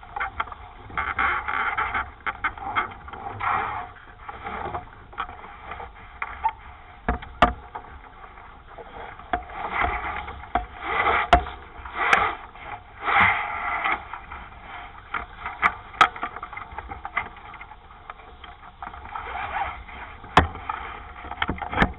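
Water rushing and splashing along a 420 sailing dinghy's hull in uneven surges, with several sharp knocks from the boat.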